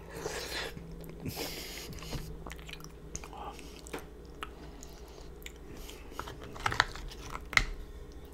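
A person chewing a big mouthful of cheesy lasagna close to the microphone, with wet mouth smacks and small clicks throughout. Two sharper clicks stand out near the end.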